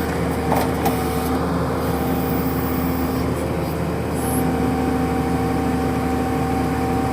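Horizontal directional drilling rig's engine and hydraulics running steadily under load while pulling back pipe, a steady drone with a held whine that steps up slightly about four seconds in.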